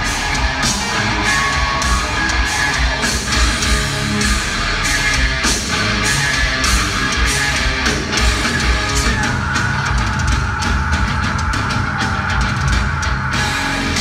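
A rock band playing live and loud in a concert hall, heard from the audience: distorted electric guitars over a drum kit with frequent hits. From about nine seconds in, a high note is held to near the end.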